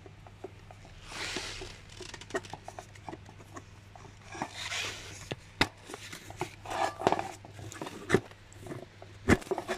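Hard plastic bicycle baby-seat parts being handled and pushed together as the headrest is fitted onto the seat frame: rubbing and scraping with scattered sharp clicks and knocks, several louder knocks in the second half.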